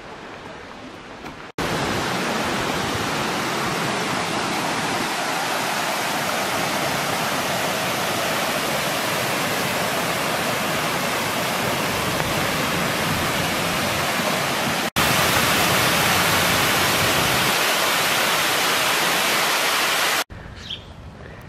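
Water pouring over a small cascade of rock ledges: a steady rush of falling water. It starts abruptly about a second and a half in, steps up louder after a cut about two-thirds of the way through, and cuts off abruptly near the end.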